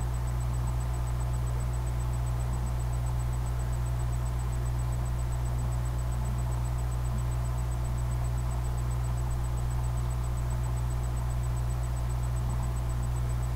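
Steady low hum with a faint hiss and a thin high tone, unchanging throughout.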